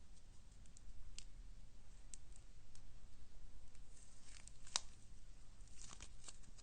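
Slime being squeezed and stretched by hand, giving scattered small sticky clicks and pops that come thicker in the second half, the sharpest about five seconds in.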